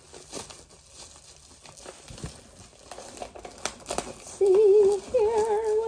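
Packing material and cardboard rustling and crinkling as a box is unpacked, then, about four and a half seconds in, a voice hums a few held, wavering notes, which are the loudest sound.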